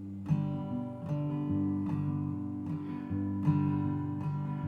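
Acoustic guitar strumming the introduction to a blues song, with a fresh strum about every 0.8 seconds.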